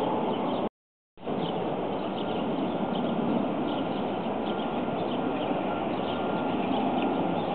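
Outdoor ambience: small birds chirping again and again over a steady rushing background noise. The sound cuts out completely for about half a second about a second in, and a faint steady whine joins around the middle.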